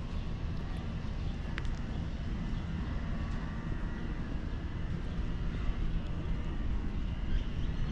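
Steady low outdoor rumble of a distant engine, with no clear rise or fall.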